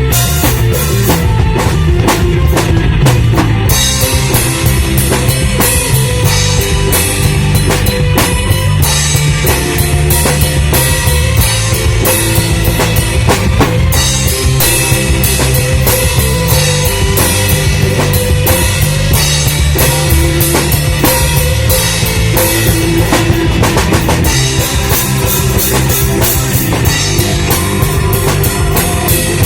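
Loud rock music with a drum kit, including bass drum, and guitar, playing steadily without a break.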